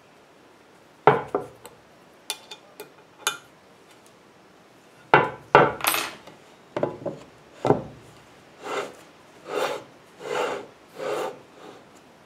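Steel plate of a wood-core slide table knocked and clattered against its base a few times, then slid back and forth on its runners in four even rubbing strokes a little under a second apart.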